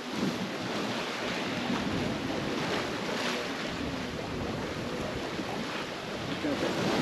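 Sea water rushing and splashing along a sailboat's hull as it sails through rolling ocean swells, a steady noisy wash with wind on the microphone.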